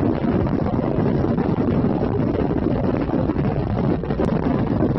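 Steady cabin noise of a jet airliner rolling on the ground: a loud, even rumble of engines and airflow heard from a window seat over the wing.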